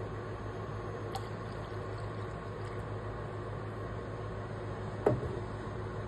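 Steady hiss and low hum of a steel saucepan of milky tea heating on the cooktop, coming back up toward the boil after the milk went in. A faint click about a second in and a single knock about five seconds in.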